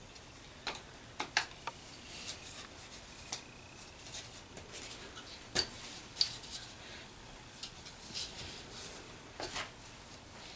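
Hard PVC pipe pieces being handled and pressed together by hand as they are glued with PVC cement: scattered sharp clicks, light knocks and short rubbing scrapes of plastic, loudest near the middle.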